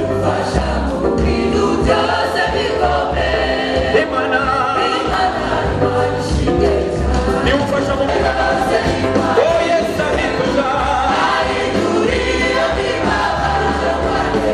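Choir singing a gospel praise song into microphones, amplified, over a low bass accompaniment.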